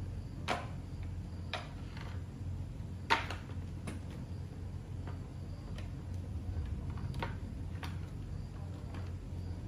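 Irregular light clicks and taps, about a dozen spread unevenly, the loudest about half a second and three seconds in, over a steady low hum.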